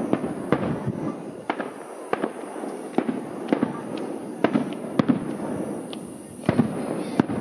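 Aerial firework shells bursting in a fast, irregular string of sharp bangs, about two a second, over a continuous rumble.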